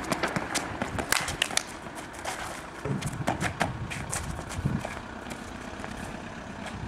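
Outdoor street ambience with scattered sharp clicks and scuffs, most of them in the first couple of seconds.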